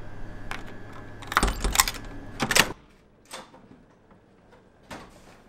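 A quick run of sharp clicks and clacks, the loudest sounds here, ending suddenly, followed by two fainter single clicks.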